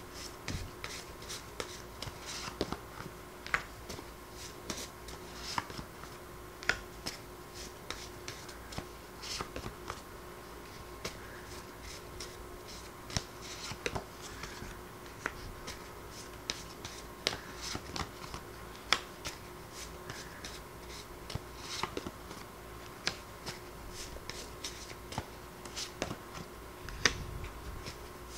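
A stack of paper word cards being shuffled and handled by hand, with irregular light flicks and clicks of the card edges several times a second, and cards laid down on the table. A faint steady hum sits underneath.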